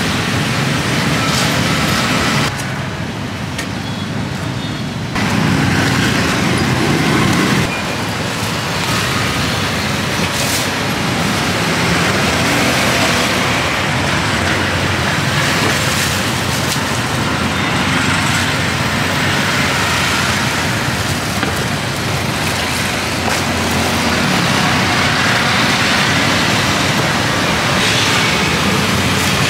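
Steady street traffic noise, with a louder stretch around five to seven seconds in and a few sharp clicks over it.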